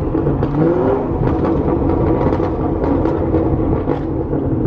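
2017 Camaro SS's 6.2-litre V8 running through catless Kooks long-tube headers with a tune: a steady exhaust drone that rises briefly in pitch about half a second in, broken by a string of sharp crackles and pops.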